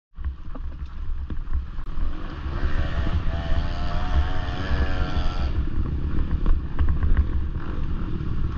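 Motocross bike engine revving, its pitch wavering up and down quickly, from about three to five and a half seconds in, over a steady low rumble with scattered clicks.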